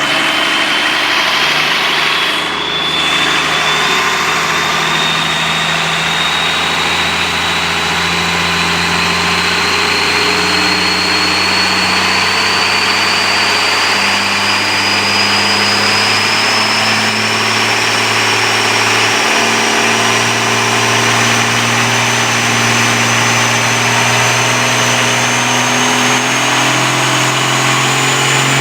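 A freshly rebuilt International DT 360 turbocharged inline-six diesel running with its injection timing set at 24 degrees BTDC. The engine note is steady and creeps slowly up in speed. A high thin whine climbs slowly in pitch over it.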